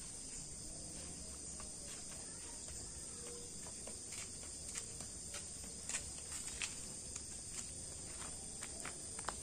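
Steady high-pitched chirring of insects in the background, with scattered light clicks from about four seconds in.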